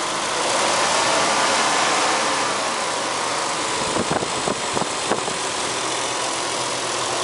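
Nissan 300ZX twin turbo's VG30DETT V6 idling steadily, its throttle-body vacuum leaks sealed with sticky tack so the loud whistle is reduced and the idle is stable. A few sharp clicks come about four to five seconds in.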